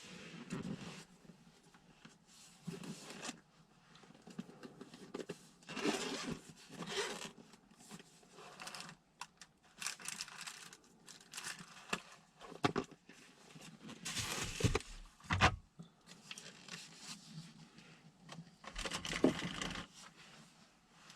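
Scattered rustling and scraping noises in bursts a few seconds apart, with a few sharp knocks, the loudest about fifteen seconds in.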